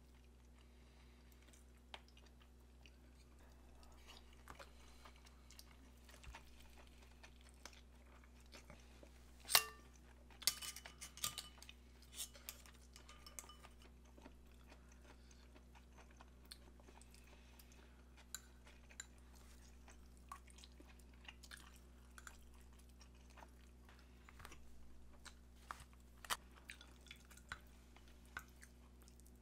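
Someone eating: quiet chewing and crunching, with chopsticks and a spoon clicking against ceramic bowls and plates. The sharpest clink comes about nine and a half seconds in, followed by a run of quicker clicks. A faint steady low hum sits underneath.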